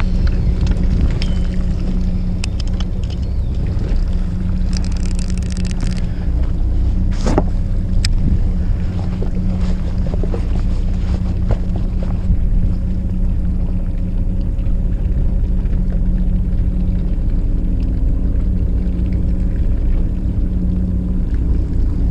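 Fishing boat's engine running steadily with a constant low hum, with wind on the microphone and a couple of short sharp knocks about seven and eight seconds in.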